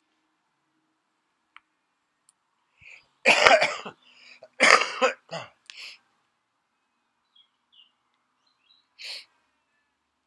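A person coughing: two loud coughs about three and a half seconds in, a few smaller ones just after, and one more short cough near the end.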